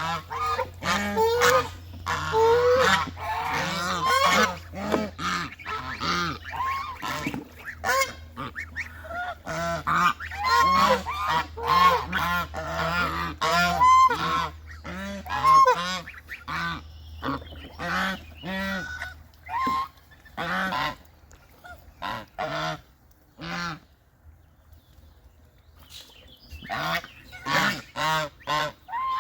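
Birds giving many short, pitched calls in quick succession, dense at first and thinning out after about 16 s, with a lull a little past two-thirds of the way through before the calls pick up again. A steady low hum runs under the first two-thirds.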